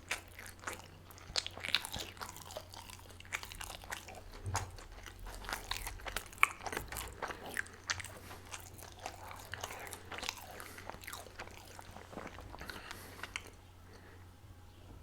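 Close-miked chewing and biting of a chicken-stuffed crepe-dough pastry: a dense run of irregular sharp mouth clicks and crunches that dies down near the end.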